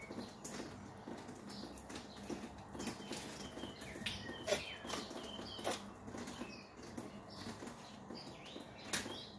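Curved Victorinox knife cutting along a hake's backbone on a plastic cutting board: irregular scrapes and taps as the blade works through the fish and touches the board, the loudest near the end. Short chirps of small birds in the background.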